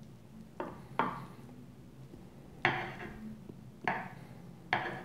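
Large kitchen knife scoring lines into raw ground-meat kibe mixture in a glass baking dish, with about five sharp taps and clicks from the knife and dish against the glass and the wooden board, each ringing briefly.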